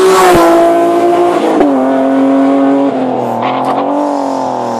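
Race car engine at full throttle, loud, shifting up through the gears on a hill climb, its note dropping sharply at each shift, about every second and a half.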